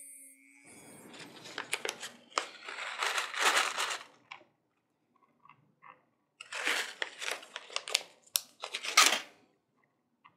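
Small plastic bag crinkling as it is handled, in two bouts: one starting about a second in, the other just past six seconds. Light clicks run through the crinkling.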